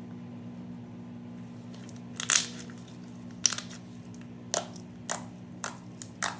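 Glitter slime being handled, popping and crackling in seven sharp bursts, the first the loudest, over a steady low hum.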